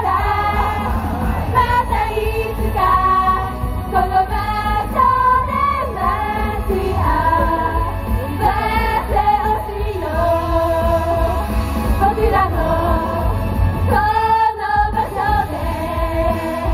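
A girl idol group singing a pop song together into microphones over a loud backing track with heavy bass, played through the stage PA. The bass drops out for a moment near the end, then comes back.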